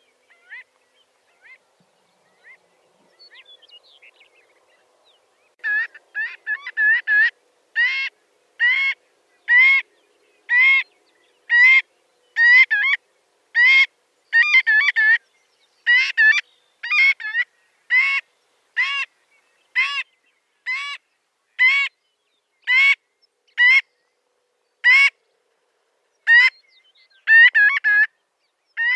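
Marbled godwit calling: a few faint calls, then a loud series of rising calls about one a second. Quick runs of short clipped notes come at the start of the series and again near the end.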